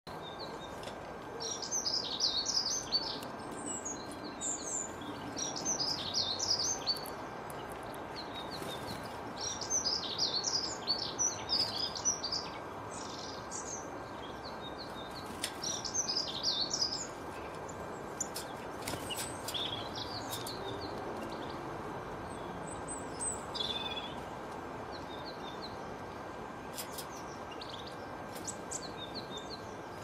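Small songbirds chirping and twittering in quick, high phrases, busy through the first half and sparser after about seventeen seconds, over a steady background hiss.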